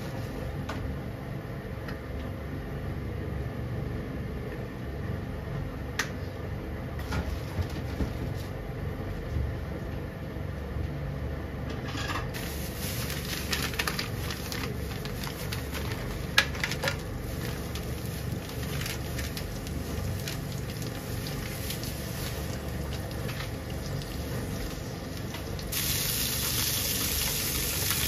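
Cooking oil heating in a non-stick frying pan over a gas stove, over a steady low rumble. About twelve seconds in a faint crackle with a few light ticks comes in as the oil warms. Near the end a louder sizzle sets in as raw pork pieces go into the hot oil.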